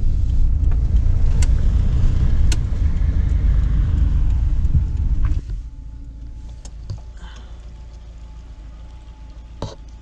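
Campervan engine and road rumble heard from inside the cab as the van drives slowly, cutting off abruptly about five and a half seconds in. After that a much quieter low hum with a few light clicks.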